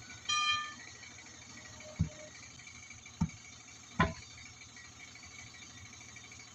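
A short high-pitched beep about half a second in, then three separate knocks, each a second or so apart, over a steady faint hiss.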